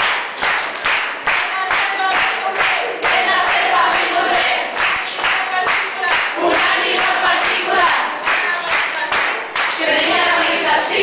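A group of voices singing a song in unison, with steady rhythmic hand-clapping, about three claps a second.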